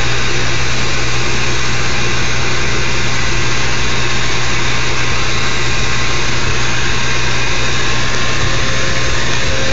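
Bee vacuum running steadily, its motor hum under the rush of air through the hose as it sucks up bees.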